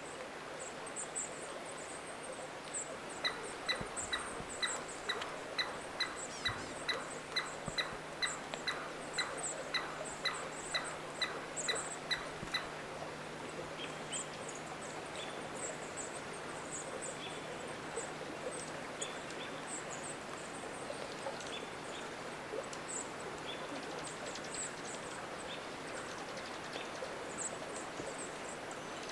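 Wild forest ambience: an animal calls with short, evenly spaced notes, about two a second, for roughly ten seconds, then stops. Faint high chirps come and go throughout over a steady hiss.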